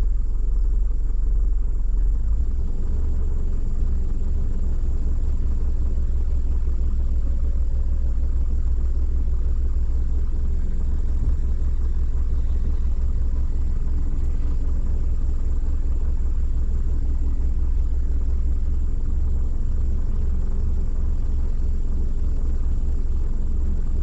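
Steady low engine rumble with no speech over it. The deepest part of the rumble shifts about two seconds in.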